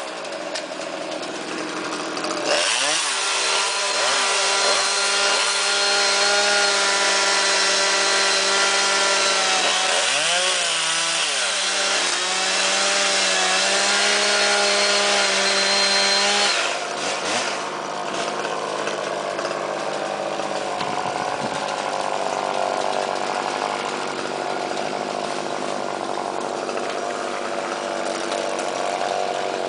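Chainsaw running at high revs from about two and a half seconds in, its pitch dipping and recovering several times as it cuts. About halfway through it drops to a lower, quieter running.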